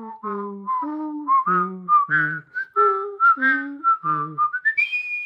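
A person whistling a melody while voicing a lower part at the same time, in short detached notes. Near the end the whistle slides up to a high held note.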